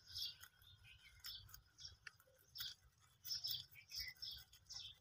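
Rabbits chewing and tearing fresh green grass: faint, crisp crunching and rustling in quick, irregular bursts.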